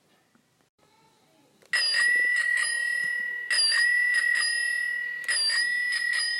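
Bicycle bell ringing three times, each ring a quick run of strikes on a bright, high metal tone.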